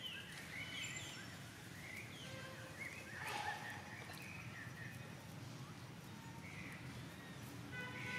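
Baby monkey crying in short high squeaks that bend up and down, again and again, with a louder cry about three and a half seconds in.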